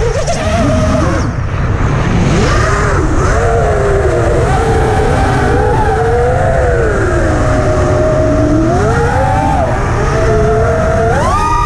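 Armattan Rooster FPV racing quadcopter's brushless motors and propellers whining, heard from its onboard camera over a steady rumble of wind and frame vibration. The pitch rises and falls with the throttle and jumps sharply higher near the end as the throttle is punched.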